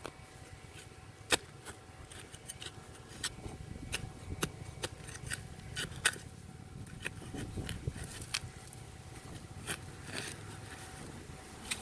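Scattered sharp clicks and short scrapes of digging in soil for a buried target, with a faint steady tone underneath.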